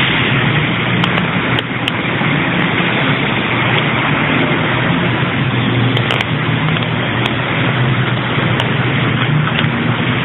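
A motor vehicle engine running steadily under a loud, even rushing noise.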